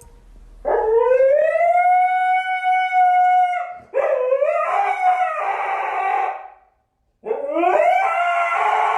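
A dog howling: one long howl that rises and then holds steady for about three seconds, then a rougher second howl. After a brief gap, another rising call starts near the end.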